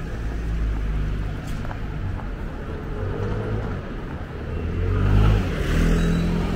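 Road traffic on a busy city street: a steady low rumble of engines, with a motor vehicle passing close by and growing loudest about five seconds in.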